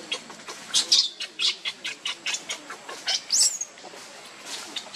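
Baby macaque giving a rapid string of short, high-pitched squeaks, ending about three and a half seconds in with one squeal that swoops up and back down.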